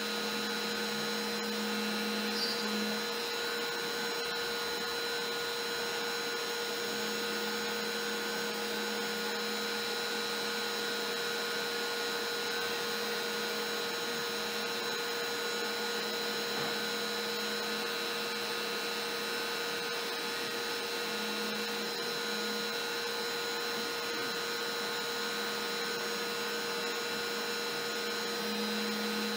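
Trim router with a single-flute upcut bit, run at its lowest speed, cutting MDF on a LowRider CNC while a dust-collection vacuum runs through the hose. It makes a steady whine, with a lower hum that comes and goes as the machine moves.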